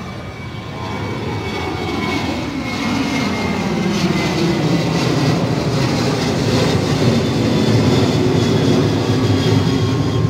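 Boeing 737 jet airliner climbing out after takeoff. Its twin-engine noise builds over the first few seconds and then holds, a deep rumble under a high whine that slowly drops in pitch.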